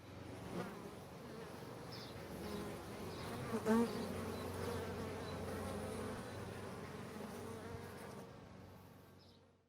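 Honeybees buzzing steadily around a beehive, a dense continuous hum, fading out near the end.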